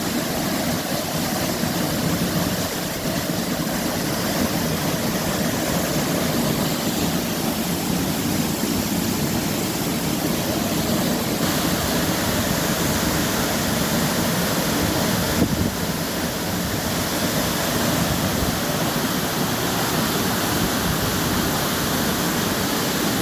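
Waterfall pouring: a steady, loud rush of falling water, its tone shifting slightly a couple of times.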